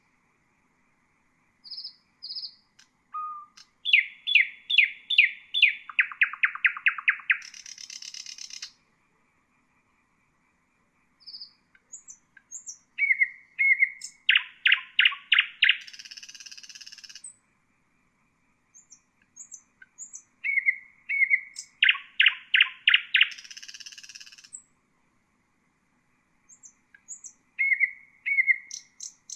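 Common nightingale singing in separate phrases with pauses of a few seconds between them. Each phrase opens with a few soft whistled notes, goes into a loud, fast series of repeated notes, and ends in a buzzing trill. Three full phrases are heard, and a fourth starts near the end.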